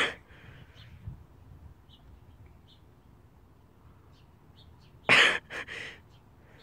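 A boy with a mouthful of dry ground cinnamon coughing and sputtering. There is a short burst at the start, then a loud cough about five seconds in and two shorter ones right after it.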